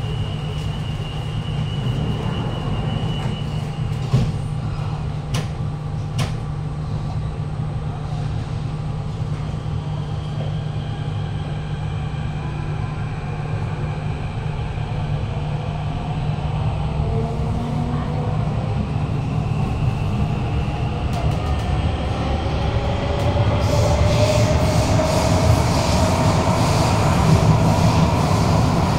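Inside a Kawasaki–CRRC Sifang CT251 metro car: a steady high warning tone for the first few seconds while the doors close, a few knocks as they shut, and a low hum. About 17 seconds in, the traction motors start to whine in several rising tones as the train pulls away, and from about 24 seconds louder wheel and rolling noise joins them.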